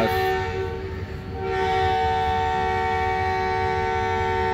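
Train horn sounding a long, steady chord of several tones. It fades briefly about a second in, then sounds again and holds, over a low rumble.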